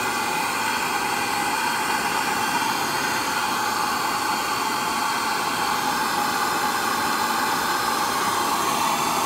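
Handheld gas torch burning with a steady hiss, its flame heating a seized driveshaft to free it.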